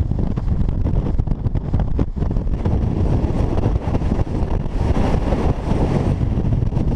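Strong wind buffeting the microphone: a loud, constant low rumble with rapid flutter, a gust swelling brighter and hissier about five seconds in.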